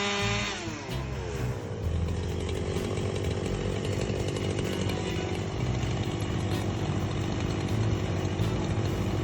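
Two-stroke chainsaw engine running. Its pitch falls over about the first second and a half, then it runs steadily.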